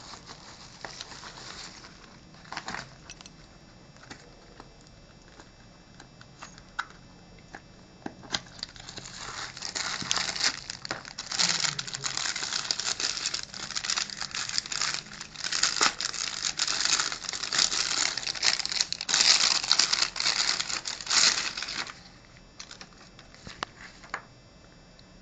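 Packaging being unwrapped by hand, crinkling and rustling. A few scattered clicks and rustles come first, then about a third of the way in a long stretch of dense crinkling starts, dying away a few seconds before the end.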